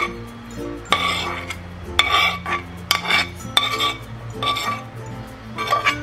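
Metal spoon scraping and clinking against a frying pan as sautéed mixed vegetables are pushed out of it into a bowl: about six short scrapes, roughly one a second. Background music plays underneath.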